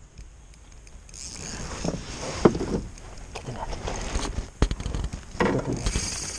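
Handling noise in a canoe: scraping and scattered light knocks against the hull as gear is moved about, with one sharper knock about two and a half seconds in.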